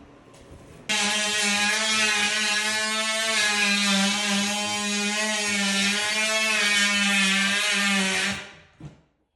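An electric power tool's motor running steadily at one speed, starting suddenly about a second in and winding down near the end.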